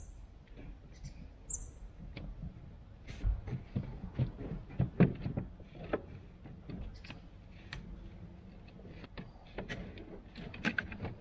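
Hands working the rubber air intake hose and its clamps loose from the factory plastic airbox of a 2015 Holden Colorado: scattered clicks, knocks and rubbing, with a cluster of louder knocks around the middle.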